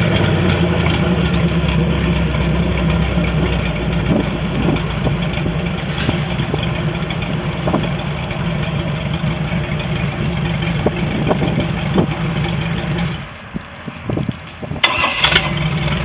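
Volvo Penta marine inboard engine idling steadily on a test stand, with water splashing out of its wet exhaust outlets. About 13 seconds in the engine note stops, and near the end it is started again and settles back to idle.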